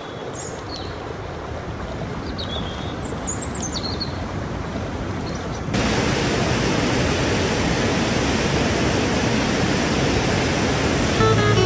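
Loud, steady rushing of a swollen stream pouring over rocks, cutting in about six seconds in. Before it comes a quieter, even hiss with a few short high chirps. Acoustic guitar music begins just before the end.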